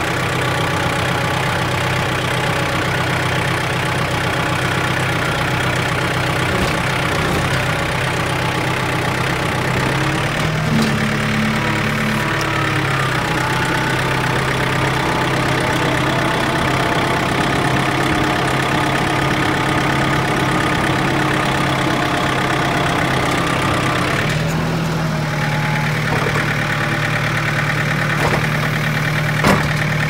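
Engine of a yellow tractor-loader running steadily as it drives with a front snow-plow blade. Its pitch steps up about ten seconds in and shifts again a few seconds before the end.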